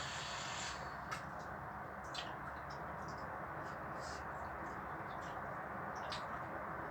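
Mouth sounds of someone eating instant noodles: short, irregular smacks and clicks of chewing and lips, with a brief slurp-like hiss at the start, over a steady background hiss.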